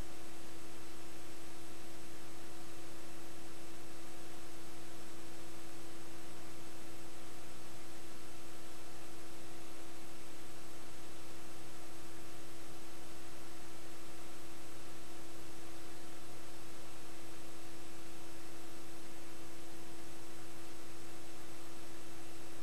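Steady electrical hum and hiss with no other sound: a mid-pitched hum with fainter higher tones over an even hiss, unchanging. It is the noise of a recording that carries no audio of the game.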